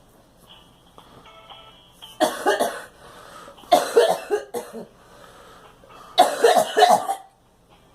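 A girl coughing in three bouts, about two, four and six seconds in. The second and third bouts are each a quick run of several coughs.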